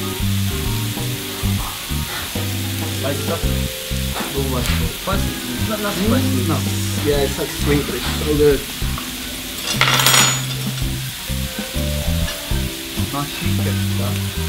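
Pork belly sizzling in a hot pan on a tabletop barbecue grill, with a brief louder hiss about ten seconds in. Background music with a bass line plays underneath.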